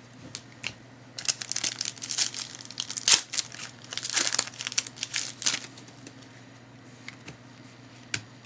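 Foil trading-card pack wrapper crinkling and tearing as it is opened by hand, a dense run of crackling for about four seconds with a few lighter rustles and clicks around it, over a faint low hum.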